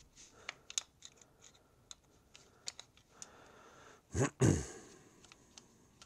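Small metal clicks and scrapes of a screwdriver working in a small-engine carburetor body to unscrew the pilot jet, with a brief louder noise a little past the middle.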